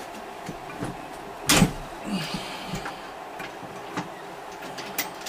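Metal knocks and clicks from bolting a heavy unit onto Unistrut: one loud knock about a second and a half in, then a few lighter clicks and taps.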